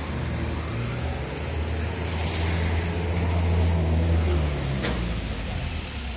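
Road traffic: a motor vehicle's engine running close by with a low steady hum. It grows louder to a peak about four seconds in, then eases off, over general street noise. A short click comes near the end.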